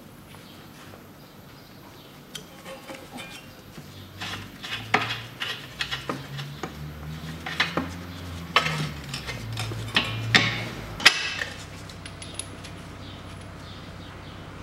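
Metallic clinks and knocks of hand tools and bolts against steel front-suspension parts during unbolting of the steering knuckle. They are scattered and sharp, mostly between about four and eleven seconds in. A low hum runs under them and cuts off suddenly near eleven seconds.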